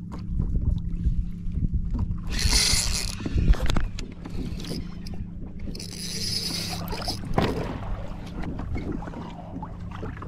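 Water and hull noise on a fishing kayak over a steady low hum, with two bursts of hiss about two and six seconds in.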